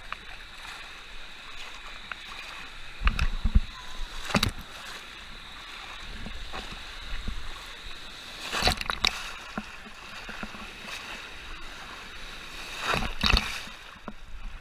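Wave-pool water sloshing around a GoPro held at the surface, with several loud splashes as waves break over the camera, about three and four seconds in, around nine seconds and again near the end.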